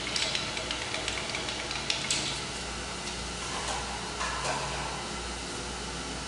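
Surface grinder running with its wheel spinning: a steady, even hiss over a low hum. In the first two seconds there are several small metallic clicks and knocks as the wheel dresser is set on the chuck.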